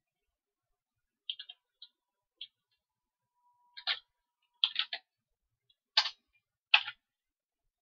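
Computer keyboard being typed on: a handful of separate short key clicks, singly and in quick pairs, the loudest in the second half.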